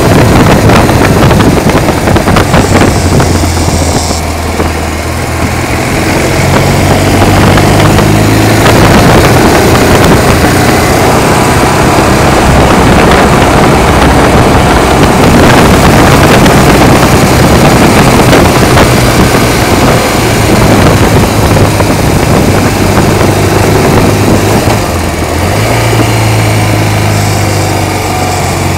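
Sidecar motorcycle's engine running at road speed, heard loud from on board with heavy wind rush on the microphone. The engine note eases off briefly about four seconds in and again near the end, then picks up.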